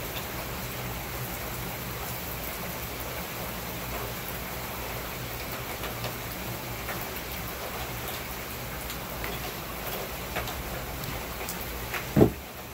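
Heavy rain falling steadily on pavement, with scattered sharp drop ticks. A single short, loud thump comes near the end.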